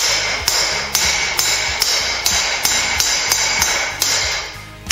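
Blacksmith's hand hammer striking a hot 3/8-inch round steel bar on an anvil, about two to three ringing blows a second, smoothing out a forged taper. The blows pause briefly near the end.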